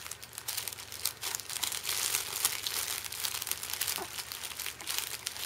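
Soft fabric crinkle book crinkling continuously as a baby's hands squeeze and crumple it, a dense crackling rustle.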